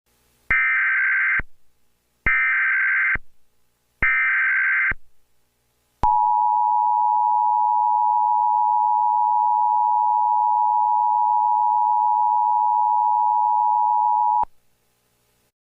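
Emergency Alert System tones: three bursts of SAME header data, each a warbling digital squawk about a second long, then the two-tone EAS attention signal held steady for about eight and a half seconds before it cuts off. Together they announce the start of a new alert.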